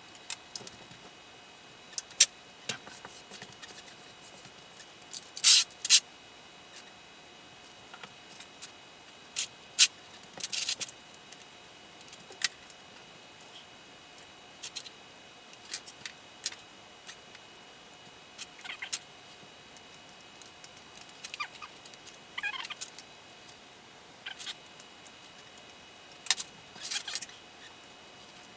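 Small parts and hand tools being handled during an RC truck suspension repair: scattered clicks, taps and brief light rattles at irregular intervals. A faint steady whine runs underneath.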